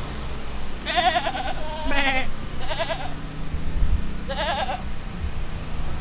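Goats bleating: four quavering calls of about half a second each.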